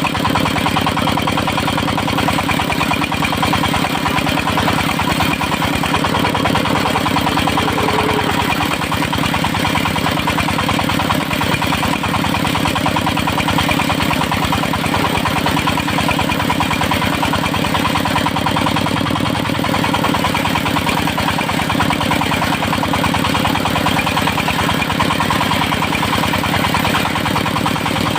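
The engine of a portable circular sawmill running steadily at an even pace, with no change in speed.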